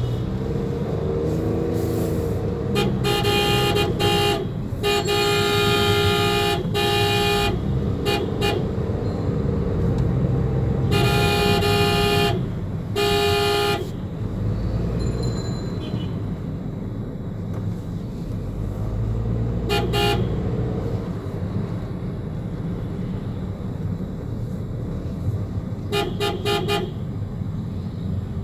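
Heavy road traffic heard from inside a car's cabin: vehicle horns honking again and again over a steady low rumble of engines. The horns give several long blasts in the first half, a short toot around twenty seconds and a quick run of short toots near the end.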